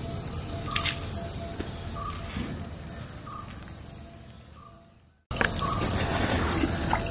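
Insects chirping in a steady, high pulsing trill, with a fainter short note repeating about every second and a half. The sound fades down and cuts out for a moment about five seconds in, then comes back.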